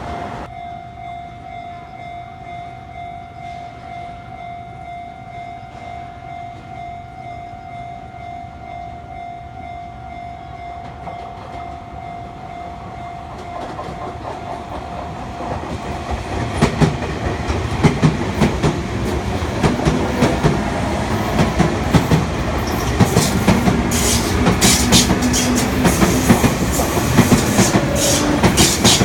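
Japanese level-crossing warning bell ringing with a steady pulsing tone, which stops about halfway through. A Sotetsu Line electric train then passes over the crossing, louder, with wheels clacking sharply over the rail joints.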